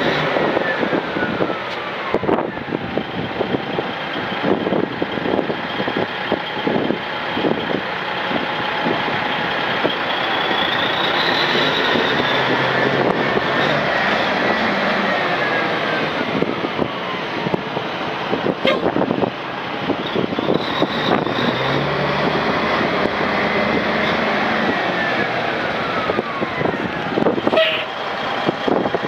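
1985 Ford LTL9000 dump truck's diesel engine running, revved up and let back down twice, its whine rising, holding, then falling with the revs.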